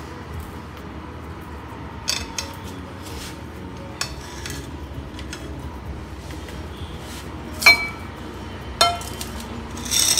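Kitchen clatter: a handful of sharp clinks and knocks from a pot, plate and knife being handled. The loudest comes about eight seconds in, with a short ring.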